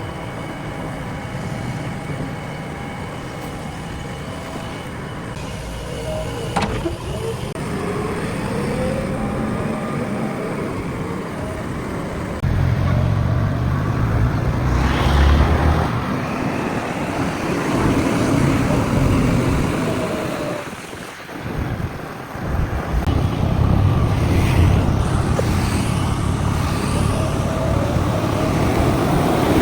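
JCB 3DX backhoe loader's diesel engine running under work load. It gets louder and heavier about twelve seconds in, drops away briefly around twenty-one seconds, then picks up again as the machine works.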